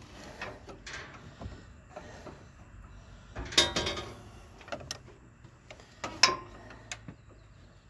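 Scattered clicks and clunks of hand tools and metal parts being handled on a zero-turn mower's steering linkage, with a louder rattling burst about three and a half seconds in and a sharp click a little after six seconds.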